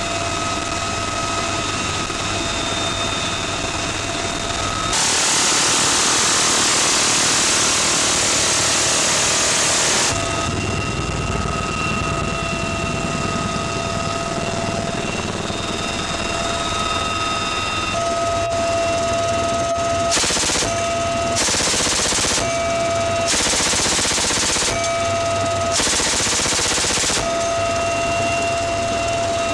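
Door-mounted machine gun on a UH-1Y Venom helicopter firing: one long burst of about five seconds, then four short bursts of about a second each later on. Under it runs the helicopter's steady turbine whine and rotor noise.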